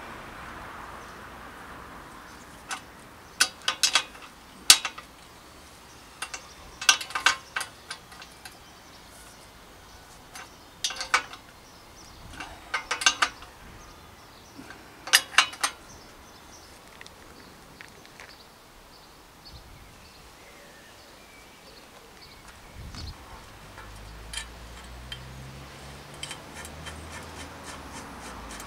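Adjustable steel spanner on a nut at a bicycle's head tube while the headset is being fitted. Sharp metal clinks come in about five short clusters as the spanner is set and turned, followed by fainter clicks.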